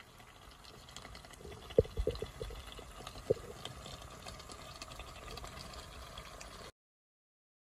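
Thick pork curry gravy bubbling in a pot with a fine crackle, and a few louder plops of bursting bubbles about two and three seconds in. It cuts off suddenly near the end.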